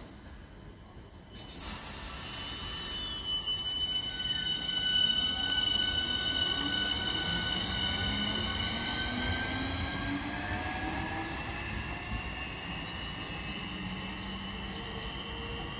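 Southeastern Class 465 Networker electric multiple unit starting away from the platform, its traction motors whining from about a second and a half in, the low tone climbing in pitch as the train gathers speed.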